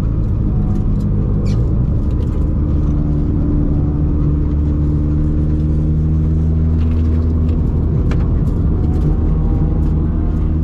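Naturally aspirated 1.6-litre Toyota 4A-GE 20-valve four-cylinder of an AE101 Corolla running under load, heard from inside the cabin. The engine note changes about two seconds in, then holds and rises slowly as the car accelerates.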